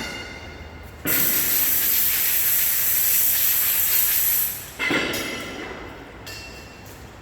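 Metal scaffolding parts knocking together and ringing, the ring dying away after each strike, with a few seconds of steady loud hissing, scraping noise in between.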